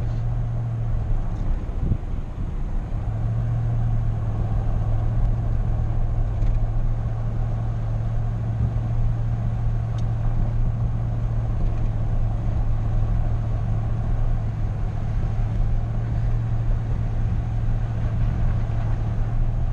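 A car being driven on a road, heard from inside: a steady low engine drone over tyre and road noise. The drone dips briefly about two seconds in.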